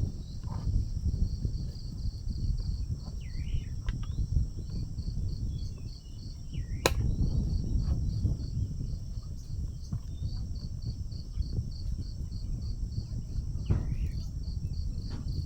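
Insects chirping in a fast, even pulse, about five a second, over a steady high hiss, with a constant low rumble underneath. A sharp click comes about seven seconds in, and a few short higher calls sound now and then.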